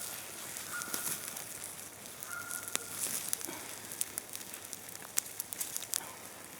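Campfire coals crackling, with scattered sharp pops throughout and two brief faint high notes about one and two and a half seconds in.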